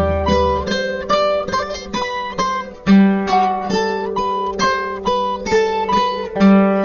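Background instrumental music on plucked strings: quick single notes picked one after another, with a low bass note coming back about every three and a half seconds.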